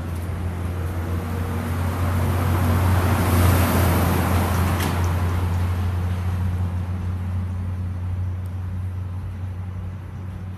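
A motor vehicle engine running with a steady low hum, while traffic noise swells to its loudest about three to four seconds in and then fades, as a vehicle passing by.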